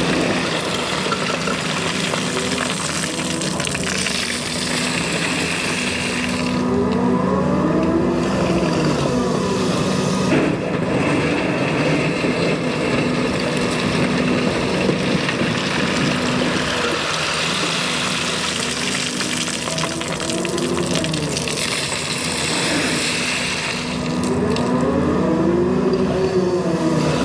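Cat 335 excavator's diesel engine running steadily while levelling gravel. Its hydraulics whine three times in arcs of rising-then-falling pitch as the boom and bucket move.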